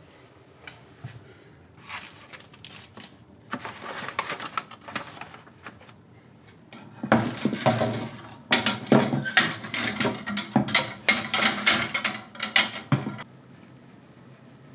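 Wooden clothes hangers clacking against each other and scraping along a metal closet rail, a dense run of knocks lasting about six seconds. Before it, lighter clicks and rustling of a shirt being handled in a wooden drawer.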